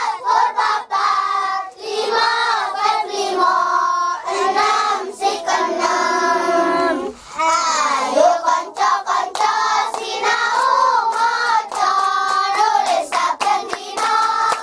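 A group of children singing a song together, with hand claps, more of them in the second half.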